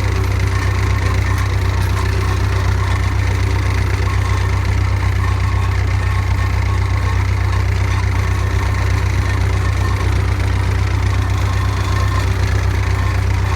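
Massey Ferguson 130 tractor's four-cylinder diesel engine idling steadily at an even, unchanging speed.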